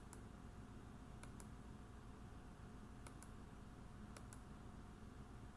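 Near silence with faint, light clicks in pairs every second or two over a low room hum.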